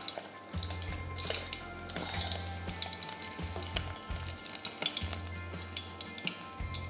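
Vermicelli-coated prawns deep-frying in hot oil in a small steel saucepan: a steady sizzle full of small crackles, with a metal utensil stirring in the pan.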